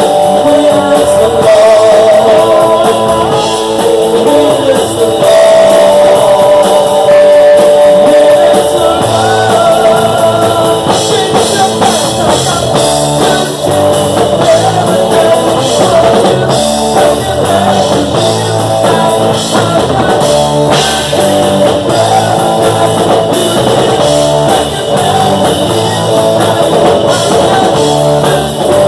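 Live rock band playing loud: a man singing into a microphone over guitar and drums.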